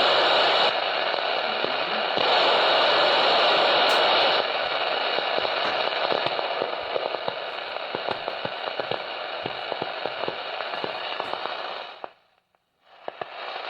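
Vocaline CB radio's speaker hissing with static, louder for the first second and again from about two to four seconds in. After that it is quieter and crackling, and it cuts off abruptly near the end.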